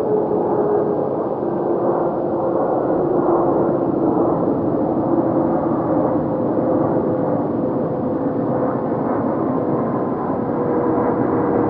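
Jet airliner noise played back in slow motion, heard as a steady, deep rumble with several low droning tones held through it.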